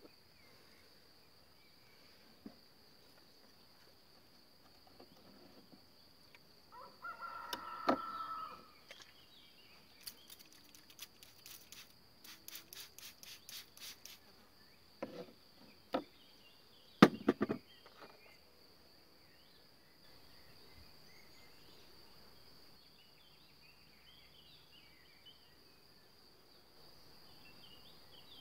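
Steady, high chirring of insects in the grass, with a bird call about seven seconds in. Over it come a run of quick clicks and then a few louder knocks, from beehive equipment being handled.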